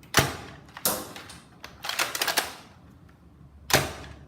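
Plastic clacks of a NERF Modulus blaster being handled as its parts are refitted: a sharp clack, another about a second in, a short rattle of quick clicks in the middle, and a last sharp clack near the end.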